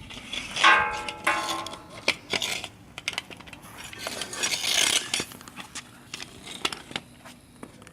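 Car jack being cranked down with its metal handle: clanks, clicks and rattles of metal parts, with a short squeal about half a second in and a stretch of scraping in the middle.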